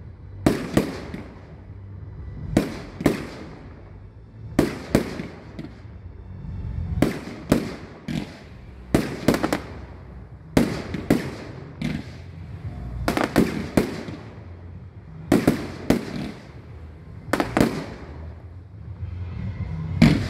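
Fireworks display: aerial shells bursting in a steady series of sharp bangs, mostly in close pairs, about every two seconds.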